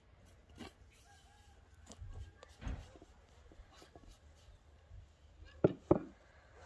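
Hand brushing and scraping ground walnuts out of a wooden bowl, a soft rubbing on the wood with scattered light clicks. Near the end come two sharp knocks about a third of a second apart, the loudest sounds.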